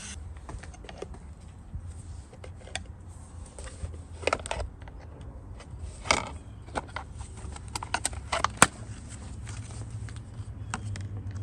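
Irregular clicks, taps and light scrapes of hand tools and small metal and plastic parts being handled, the loudest sharp clicks about four, six and eight and a half seconds in, over a faint steady low hum.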